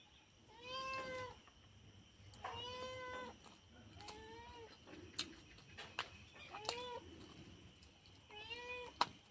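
A cat meowing repeatedly: about five drawn-out meows, each rising then falling in pitch, a second or two apart, with a few sharp clicks between them.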